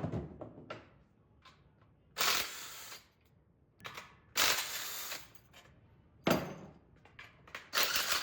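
Five sharp knocks or clatters, each sudden and trailing off within about a second, spaced roughly two seconds apart.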